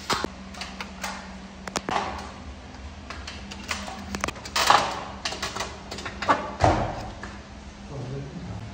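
Spatula and palette knife scraping thick paint across a wall in irregular strokes, the loudest about halfway through and again a little later, over a steady low hum.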